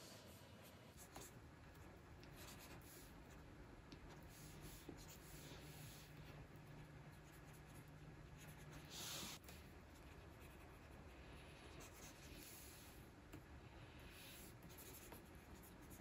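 Faint scratching of a stylus nib stroking across the Wacom Cintiq 24 Pro's screen in many short strokes, with one louder stroke about nine seconds in.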